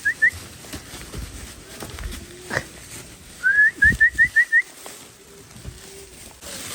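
A person whistling in short rising notes, twice: first a quick run of notes, then about three and a half seconds in a longer rising note followed by five fast chirps. Faint knocks and a low hum sit between them.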